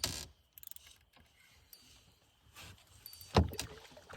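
A sharp knock at the start and a louder, deeper thump a little over three seconds in, with a few faint clicks between.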